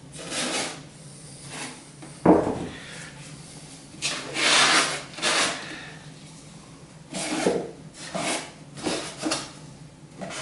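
Kitchen roll rubbing over a white foam drone fuselage in a series of short wiping strokes, cleaning off Gorilla Glue foaming out of the seams. There is one dull knock about two seconds in, the loudest sound.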